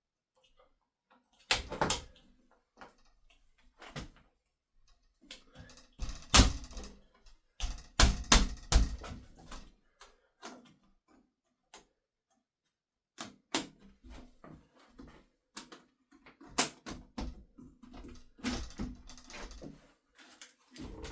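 Irregular plastic clicks and knocks from a trickle vent's inside plate being handled and snapped onto a uPVC window frame with its clip fixings, in scattered clusters.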